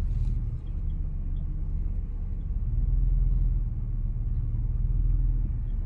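Car engine running with a steady low rumble, heard from inside the cabin as the car is slowly reversed into a parking space.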